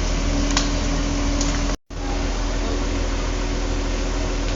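A heavy vehicle's engine running steadily with a low rumble and a steady hum, cut by a brief gap of silence just under two seconds in.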